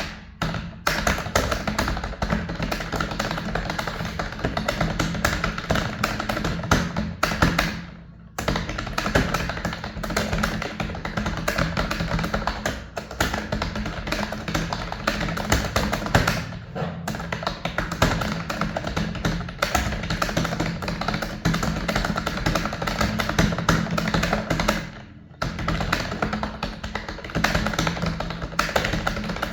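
Fast, continuous typing on a computer keyboard, a dense run of key clicks broken by brief pauses about eight, sixteen and twenty-five seconds in.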